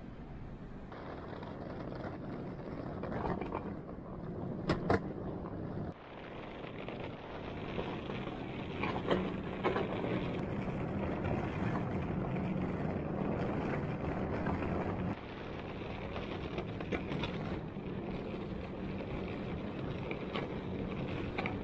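Street ambience: a steady hum of traffic with a few sharp clicks scattered through it. The background changes abruptly a few times.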